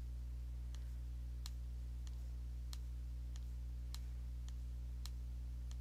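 Faint computer mouse clicks, about one every half second, over a steady low hum.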